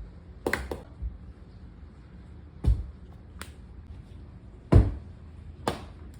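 Golf club striking a golf ball and the ball bouncing and knocking on hard indoor surfaces: about seven sharp, separate knocks at irregular gaps, the loudest a little before the end.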